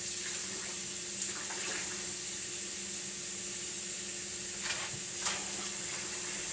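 Kitchen tap running as a drinking bottle is rinsed and scrubbed out with a bottle brush, over the steady sizzle of food frying on the stove. A few light knocks come through.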